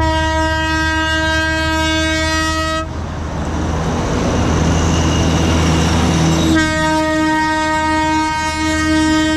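Darjeeling Himalayan Railway toy train sounding two long, steady horn blasts, the second coming about four seconds after the first ends. Between the blasts the running train makes a rushing noise over a steady low rumble.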